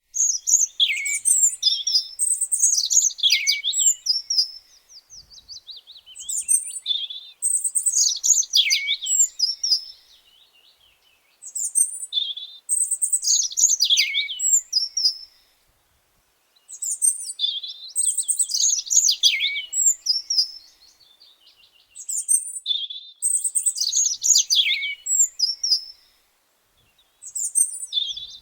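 Songbirds singing: rapid high chirps and quick falling trills in bursts a few seconds long, separated by short pauses.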